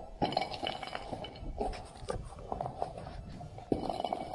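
Footsteps crunching on frozen snow and ice, a run of sharp, uneven crunches about every half second.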